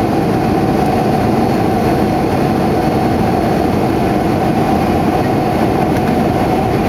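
Steady cabin noise inside a Boeing 757-200 in flight, heard from a window seat beside its Rolls-Royce RB211 engine: a constant, even rush of engine and airflow.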